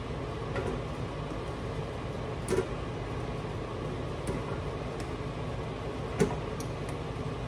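Cooked tomatillos and serrano chiles dropped into a blender jar: a few separate soft knocks, the loudest about six seconds in, over a steady low hum.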